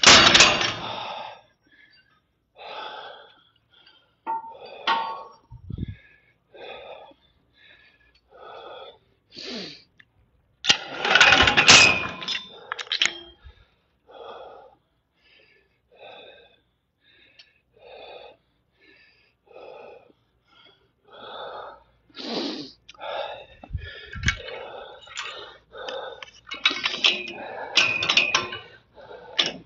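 A man breathing hard from a weight-training workout, in short puffs about once a second, with heavier, denser stretches a few times.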